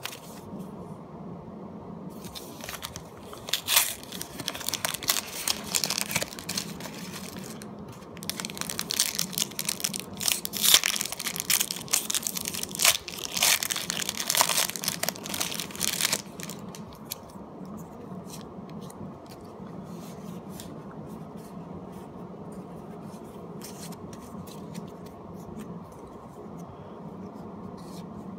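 A sleeved Pokémon booster pack is crinkled and torn open: the plastic sleeve and foil wrapper crackle loudly for about the first half. After that come quieter light flicks and slides of the trading cards being shuffled through by hand.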